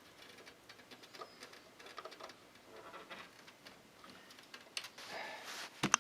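Faint, scattered light clicks and rustling from handling the PC's cables and parts, growing louder about five seconds in, with one sharp click near the end.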